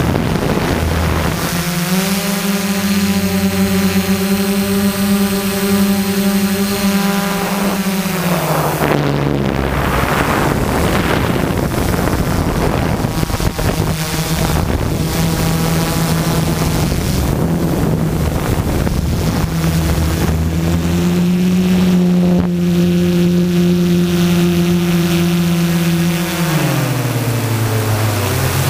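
Quadcopter's four Multistar 2212 920kv brushless motors spinning 12-inch carbon-fibre propellers, heard from the on-board camera as a steady buzzing hum. Its pitch rises a couple of seconds in, falls about eight seconds in, climbs again past twenty seconds, then dips and recovers near the end as the throttle changes. Wind rushes over the microphone throughout.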